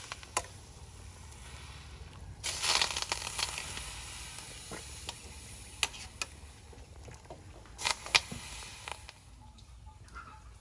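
Wet, blanched napa cabbage leaves being lifted from a pot of hot water with metal tongs and dropped into a plastic colander: a burst of splashing and dripping water about two and a half seconds in, and a few sharp clicks of the tongs.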